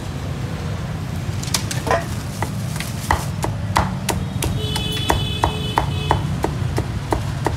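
Cleaver chopping roast pork on a round wooden chopping block, quick sharp chops about three a second, starting about a second and a half in.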